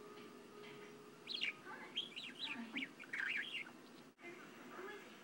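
Budgerigar chattering: a string of quick chirps that rise and fall in pitch, starting about a second in and lasting about two and a half seconds.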